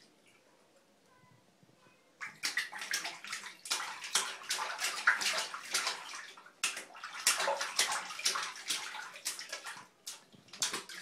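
A baby's hand slapping the water in a small plastic infant bathtub: rapid, irregular splashing. It starts about two seconds in after a near-silent moment and dips briefly near the end.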